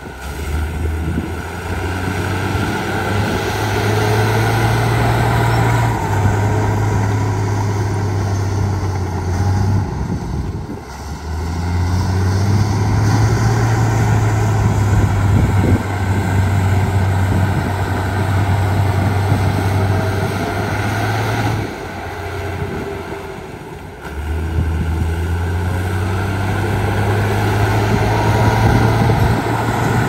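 Heavy diesel machinery engine running under load, its low drone stepping up and down in pitch and easing off twice, around ten seconds in and again after twenty.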